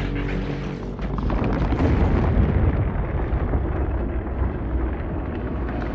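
Film sound effects of explosions and a heavy, continuous low rumble of destruction, swelling about a second in as steady musical tones fade beneath it.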